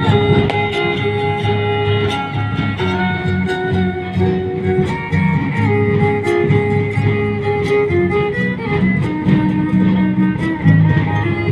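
A violin plays a melody over rhythmically strummed guitars: a son (sonecito) in the style of a Huasteca string trio.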